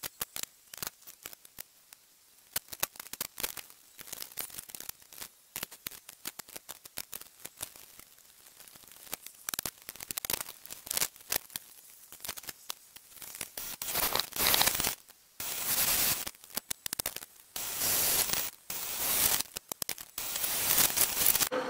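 Scattered light clicks and rustles of tools being handled. From about two-thirds of the way in, a drill press boring a hole through a sword guard blank in about five harsh bursts, with short pauses between them.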